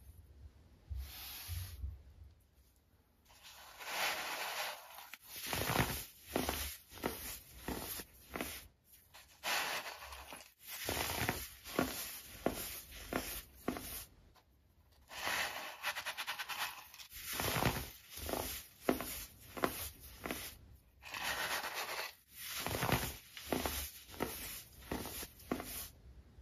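Fingers crushing and rubbing chunks of baked baking soda into a bed of powdered baking soda: gritty crunching and scraping strokes. They come in runs of a second or two with short pauses between, starting a few seconds in.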